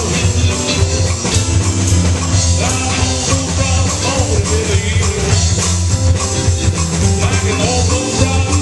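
Live blues band playing a boogie, with electric guitar, bass guitar and drum kit carrying the music and a steady, heavy bass line.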